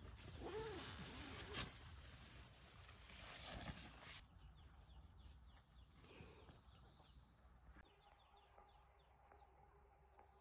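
A nylon tent door being opened: zipper rasp and fabric rustling, with one sharp louder knock or snap in the middle. It cuts off suddenly about four seconds in, leaving faint bird chirps in a quiet forest.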